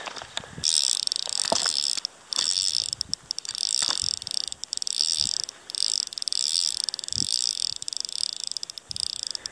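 Fly reel's drag buzzing at a high pitch as a hooked fish runs and pulls line off the reel. The buzz is broken by short pauses about two, five and a half and nine seconds in.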